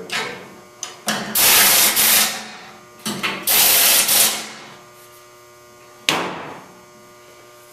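Air ratchet running in two bursts of about a second each, a whining motor with a hiss of exhaust air, driving the bolts that fasten the caster wheels to the engine hoist's legs. A single sharp clank about six seconds in.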